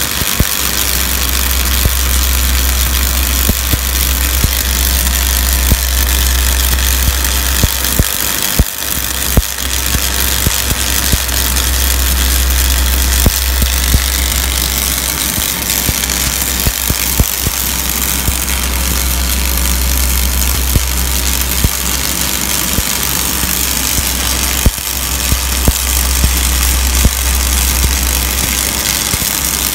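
Stick (shielded metal arc) welding: the electrode's arc crackles and sizzles steadily over a deep hum, with frequent sharp pops. The sound breaks off briefly about eight and a half seconds in.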